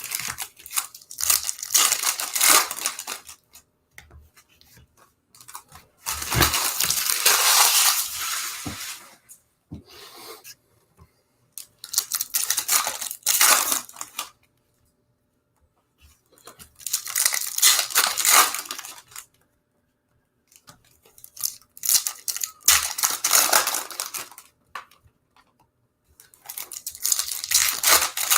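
Foil trading-card pack wrappers being torn open and crinkled, one pack after another: six bursts of tearing, roughly every five seconds.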